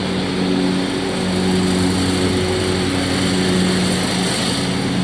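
Small engine of a riding lawn mower running steadily at a constant speed.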